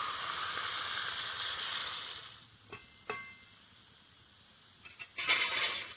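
Vegetables and spice paste sizzling in a hot kadai as water is added for boiling, the hiss dying away about two seconds in. Then two short metallic clinks that ring briefly, and a short, louder burst of hiss near the end.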